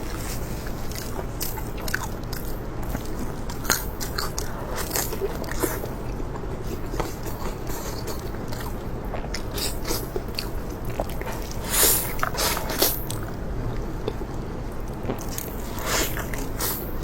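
Close-up crunchy chewing: irregular sharp crunches of a person biting and chewing hard, crunchy food, with a few louder crunches about twelve and sixteen seconds in.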